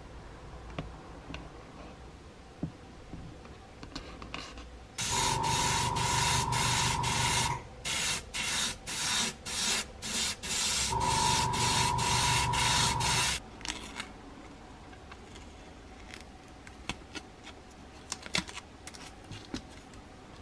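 Black paint being sprayed onto a masked plastic model truck cab: a loud hiss held for a couple of seconds, a run of short bursts, then another long hiss, about eight seconds in all, with a steady tone under the long sprays. Faint clicks and rustles of masking tape being handled near the end.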